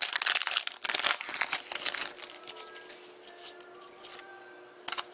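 Foil wrapper of a hockey card pack crinkling and tearing as it is opened, busiest for about the first two seconds, then softer handling with one sharp click near the end.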